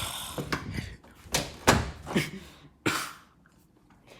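A door being handled, with several knocks and thuds and some scraping in the first three seconds.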